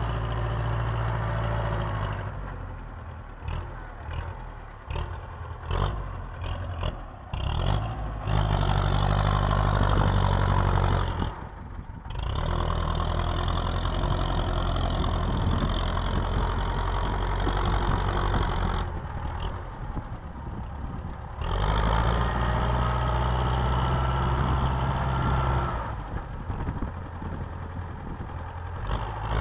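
Belarus 510 tractor's four-cylinder diesel engine working hard under load, hauling a fully loaded earth trolley. The engine note surges and drops unevenly for the first several seconds, then runs heavy and steady, with a couple of brief dips.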